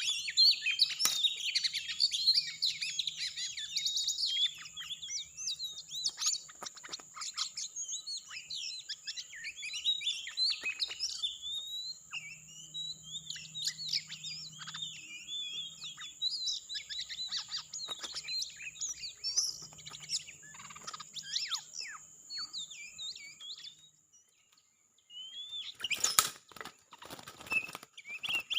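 Oriental magpie-robin song: a rapid, varied run of whistles and chirps over a steady thin high tone. The song drops out briefly near the end, followed by a short burst of loud noise.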